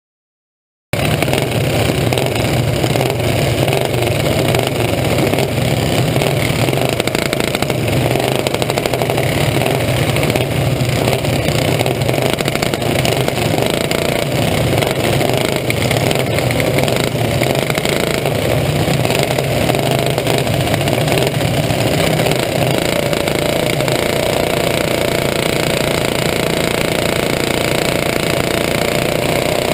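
Champ kart engine running steadily, heard from a camera mounted on the kart, with other karts running close by. Near the end the engine note rises as the kart speeds up for the green flag.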